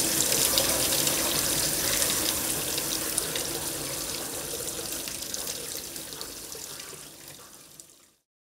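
Tap water running and splashing into a glass beaker of spent piranha solution in a stainless steel sink, diluting and flushing it away. The sound is steady, then fades out gradually and ends about eight seconds in.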